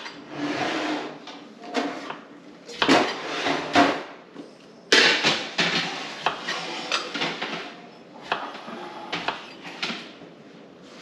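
A kitchen knife chopping fruit on a cutting board: a string of sharp knocks of the blade against the board, with louder clatters of dishes and kitchenware in between.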